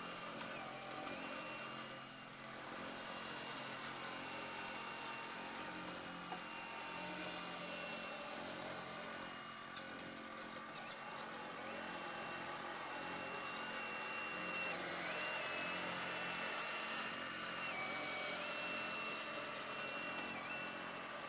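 Radio-controlled scale model Liebherr 576 wheel loader driving in sand: a steady motor hum with a high whine that steps up and down in pitch several times.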